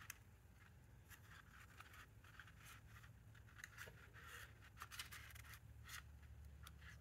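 Near silence, with faint scattered clicks and scratches from hands turning the plastic recoil-starter pulley of a Husqvarna 440 chainsaw to wind up its recoil spring.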